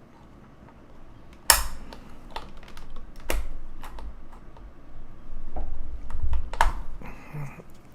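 A Corsair keyboard's keys and keycaps clicking sharply a few times at irregular intervals as it is handled, with low bumps of handling near the middle.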